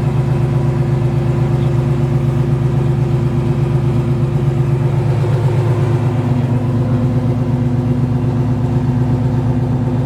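1967 Chevelle's 396 big-block V8, breathing through headers into a Flowmaster dual exhaust, idling steadily with an even pulsing note.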